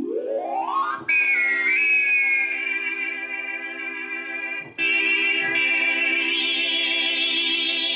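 Rhodes Chroma analog polyphonic synthesizer playing a sustained, harmonically rich tone. It sweeps upward in pitch in the first second, is re-struck about a second in and again near five seconds, and its high overtones shift and grow brighter as the patch is adjusted.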